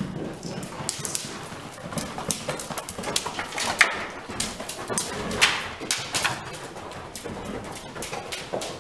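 Horse's hooves striking the sand and dirt floor of a riding arena in an irregular run of thuds, with a few louder strikes near the middle as the horse passes close by.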